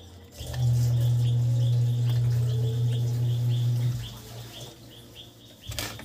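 A loud, low, steady hum comes in about half a second in and stops about four seconds in. Under it, a bird chirps over and over, about three short chirps a second. A few sharp clicks come near the end.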